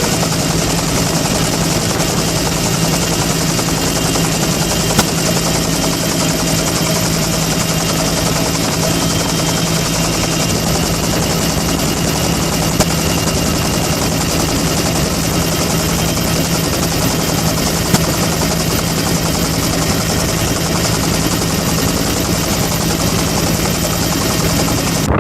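A motor running steadily at a constant speed throughout, giving a strong low hum over a wide rushing hiss.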